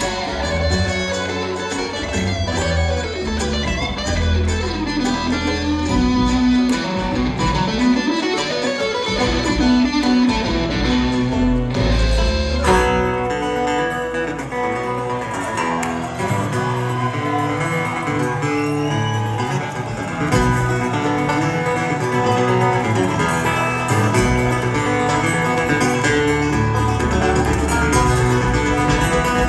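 Live bluegrass band playing: acoustic guitar and upright bass with other plucked string instruments, heard through the audience's phone recording of the hall.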